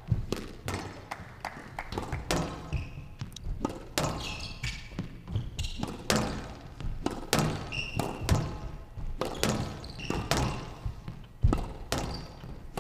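Squash rally: the ball cracking off racquets and the walls in a quick, uneven string of sharp smacks, with short high squeaks of court shoes and footfalls between the shots.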